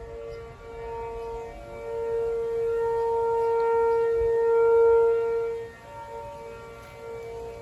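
Outdoor tornado sirens, among them a nearby ACA P-15 and a Federal Signal 2T22, sounding a steady alert tone for a scheduled monthly test. Several held tones overlap. The sound swells to its loudest a little past the middle, then drops away and comes back near the end.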